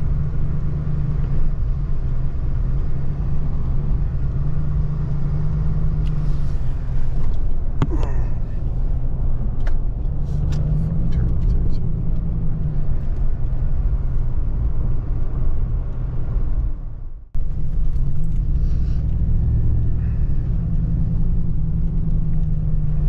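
Truck engine and road noise heard from inside the cab while driving: a steady low drone, with a brief sudden dropout about three quarters of the way through.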